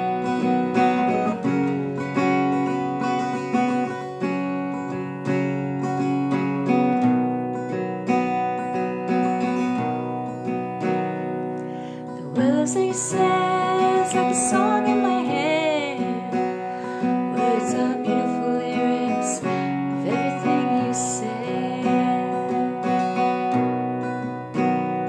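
Acoustic guitar playing chords in a slow, easy song. About halfway in, a woman's singing voice with vibrato comes in over the guitar and recurs toward the end.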